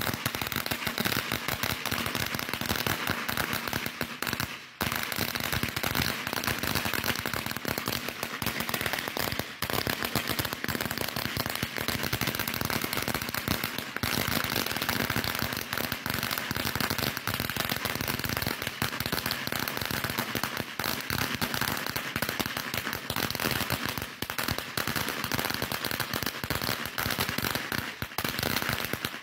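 A long string of firecrackers going off in rapid, continuous pops, with a brief lull about five seconds in.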